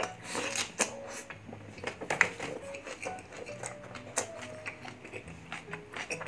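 Close-miked wet chewing and mouth smacking from a person eating a mouthful of kare-kare stew, a string of irregular sharp clicks, over light background music with short stepping notes.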